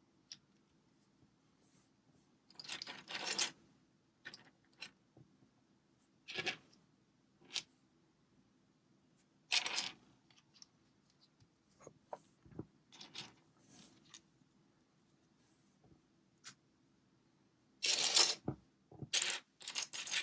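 Lego bricks being handled and pressed together: scattered clicks and short rustling scrapes, loudest in a cluster near the end.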